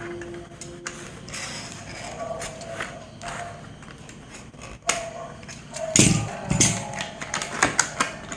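Computer parts' packaging being handled and opened: scattered clicks and rustles, a sharp knock about five seconds in, and louder thuds a second later.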